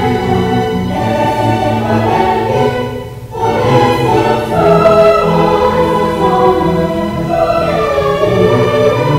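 Children's choir singing with a string orchestra of violins, cellos and double bass. The music breaks off briefly about three seconds in and comes back louder.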